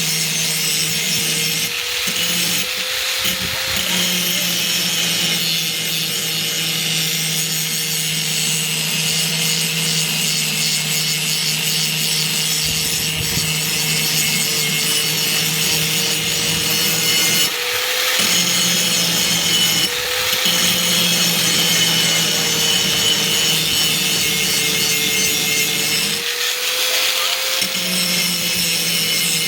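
Axe blade being sharpened on a powered grinder: continuous steady grinding with a slightly wavering pitch, broken off briefly a few times as the blade is lifted or repositioned.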